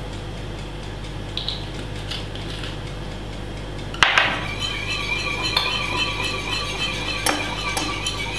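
Wire whisk beating chocolate cake batter in a ceramic bowl: after a quiet start with a few faint clinks and a sharp knock about four seconds in, the wires scrape and clink against the bowl in a steady rhythm.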